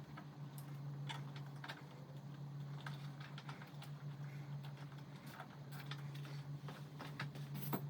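Irregular small plastic clicks and ticks of nylon zip ties being threaded and pulled tight, over a steady low hum.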